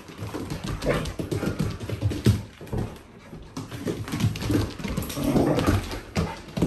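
Two Akita dogs play-wrestling on a wooden floor: paws scrabbling and clicking on the boards, with short dog whines and grumbles, loudest about five seconds in.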